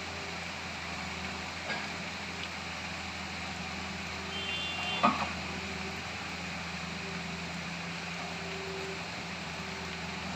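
Hitachi excavator diesel engines running steadily, with a single sharp knock about five seconds in.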